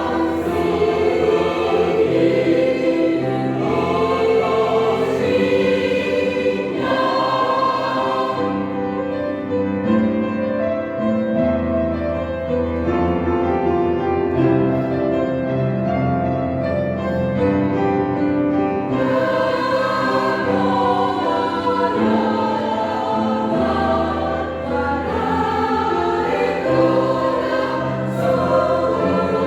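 Church choir singing a choral canon in sustained parts, growing softer and thinner for about ten seconds in the middle before swelling fuller again.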